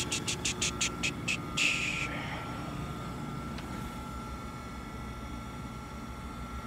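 Mitsui MSG-200 surface grinder running with its wheel spinning: a steady hum with a faint high whine over it. In the first two seconds there is a rapid series of hissing pulses, about five a second, ending in a longer hiss just under two seconds in.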